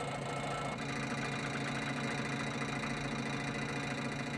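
A truck engine idling steadily, a low even hum that shifts slightly in tone just under a second in.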